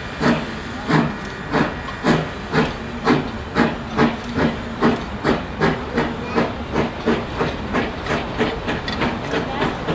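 Narrow-gauge 2-6-2 steam locomotive working hard, its exhaust chuffing in an even rhythm of about two to three beats a second that picks up pace slightly.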